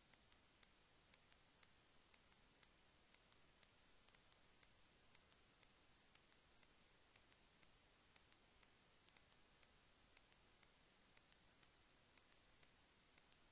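Near silence: faint hiss with many tiny irregular clicks, several a second.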